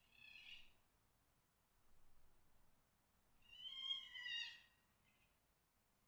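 Fox mating calls: three harsh, screaming calls, a short one at the start, a faint one about two seconds in, and a louder, longer one about three and a half seconds in that sags slightly in pitch at its end.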